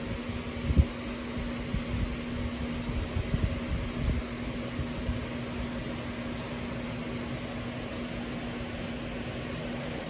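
Steady machine-like hum with a constant low tone under a faint hiss, like a room fan or air conditioner. Several dull low thumps in the first half, the loudest just under a second in.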